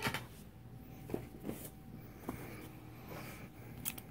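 Faint handling noise: a few scattered clicks and knocks with light rustling as a cardboard box and hard plastic graded-card slabs are moved about.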